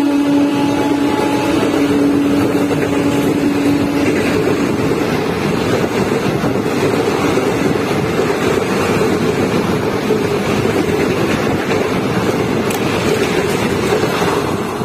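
Express train coaches passing close at speed, a loud steady rushing rumble of wheels on rails. The locomotive's horn trails off over the first few seconds.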